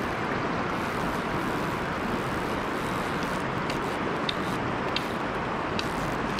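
Steady rush of flowing river water, with a few faint short clicks between about four and six seconds in.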